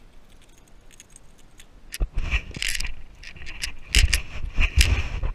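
Splashing and knocking as a landed seatrout flops in a rubber-mesh landing net held in shallow water, with light clinks of the net frame and tackle. The sharpest knocks come about four and five seconds in.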